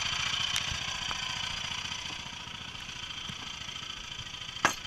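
Small engine of a Cambodian bamboo train (norry) idling with a steady low pulsing, growing a little fainter about two seconds in. A single sharp knock near the end.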